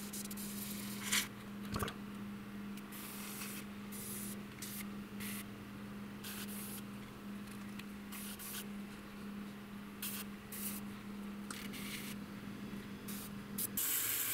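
Airbrush spraying paint in many short bursts, each a second or less. There is a sharp click a little under two seconds in. A steady low hum runs underneath and cuts off near the end.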